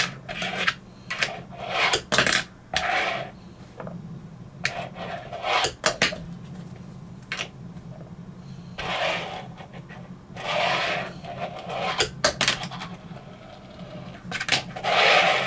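A fingerboard rolling across a desktop in short runs, about a dozen of them, with sharp clicks from the board popping, landing and knocking on the wood. A steady low hum runs underneath.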